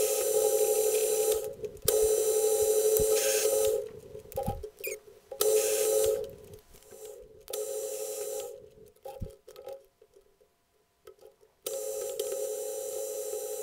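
Metal lathe running with a steady gear whine during thread-cutting passes, stopping and restarting several times, with a few clunks from the controls in the pauses and a short near-silent stop about ten seconds in.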